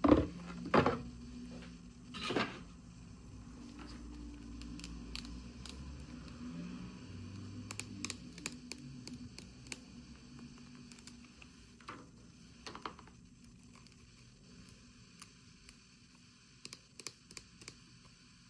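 Small toy packaging being handled and opened by hand: three sharp knocks and rustles in the first few seconds, then scattered light clicks and crinkles over a faint steady hum.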